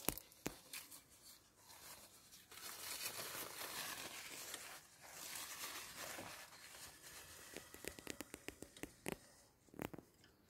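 Faint rustling and crinkling of a plastic food bag, with a run of small scattered clicks near the end.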